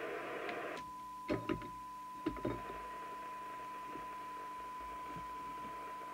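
Receiver hiss from the Maxcom 6E CB radio's audio cuts out about a second in, and a steady test tone takes its place: the signal generator's modulation tone coming through the receiver during alignment. A few knocks, in two pairs, come in the second and third seconds.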